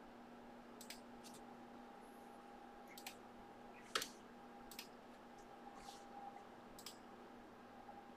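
Faint, scattered light clicks and taps, with one sharper tap about four seconds in, over a faint steady hum.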